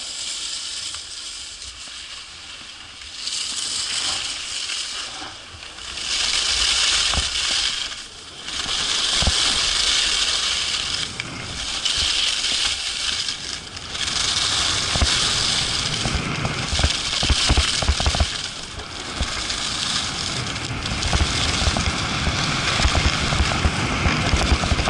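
Skis carving on groomed snow through a series of turns, a swell of scraping hiss with each turn about every two to three seconds. Low thumps and rumble grow stronger in the second half.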